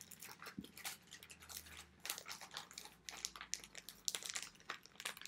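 Packaging being handled, crinkling and rustling in quick, irregular crackles.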